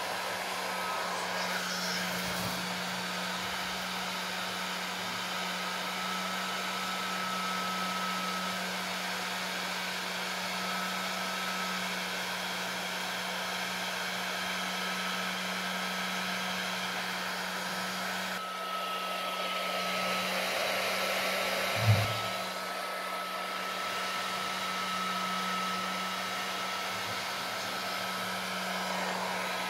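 Bosch GHG 660 LCD heat gun running steadily, a steady blowing rush over a constant motor hum, as it shrinks heat-shrink tubing over a wire splice. A single short knock about three quarters of the way through.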